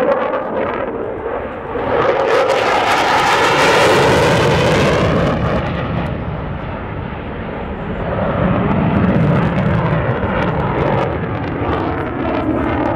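Jet noise from a Saab JAS 39 Gripen's single afterburning turbofan as the fighter manoeuvres overhead, with a sweeping, phasing quality. It swells to a harsh peak about two seconds in, eases off in the middle, and builds again with a deeper roar towards the end.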